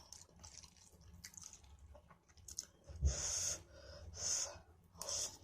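A person eating stir-fried noodles close to the microphone: faint chewing and small mouth clicks, with two louder breathy noises about three and four seconds in.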